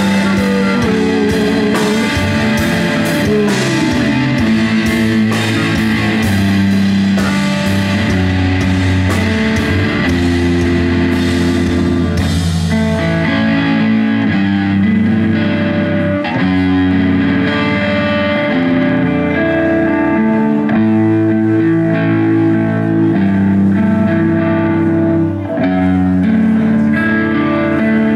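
Live rock band playing an instrumental passage: electric guitar, electric bass and drum kit, with no singing. The crashing top end dies away about halfway through, leaving guitar and bass more to the fore.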